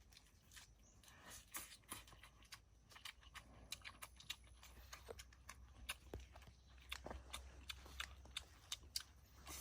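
Faint chewing and crunching of food: a person eating, with many small sharp clicks and crackles.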